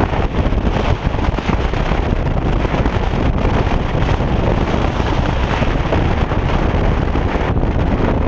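Wind buffeting the microphone of a camera on a moving motorcycle, a steady rushing noise over the bike's engine and road noise. The hiss thins a little near the end.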